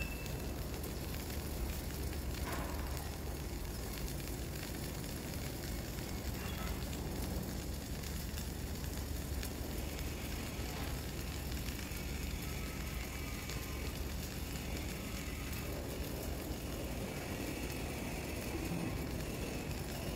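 Flux-cored arc welding: the arc running steadily for a long stretch, with a low hum underneath.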